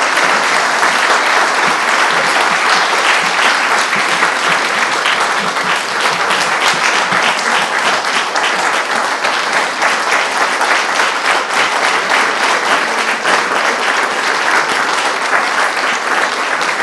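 An audience applauding, many people clapping at once in a dense, steady stream of claps.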